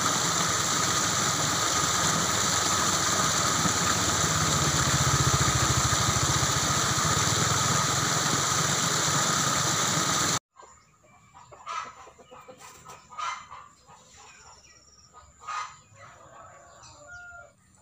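Water pouring steadily over a small stone weir into a channel. It cuts off abruptly about ten seconds in, and a much quieter stretch follows in which chickens cluck a few times.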